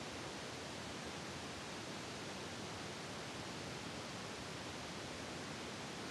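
Steady, even hiss like static, with no distinct sounds standing out.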